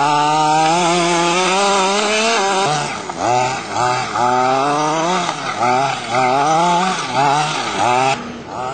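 Small 23cc two-stroke petrol engine of a 1:5 scale R/C buggy, held at high revs for about two and a half seconds, then revved up and down in quick repeated blips, about one and a half a second.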